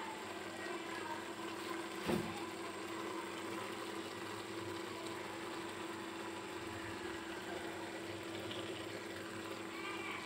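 Beef mince simmering in an open aluminium pressure cooker on a gas stove: a steady hiss with a low hum under it, and one sharp clink about two seconds in.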